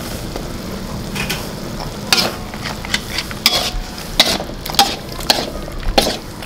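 Sliced pork and mushrooms sizzling in a hot wok while being stir-fried. A metal spatula and spoon scrape and knock against the wok in irregular strokes, growing frequent from about two seconds in.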